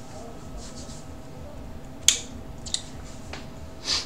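A few isolated clicks over a faint steady hum: one sharp click about two seconds in and two softer ticks after it, then a short breathy hiss just before the end.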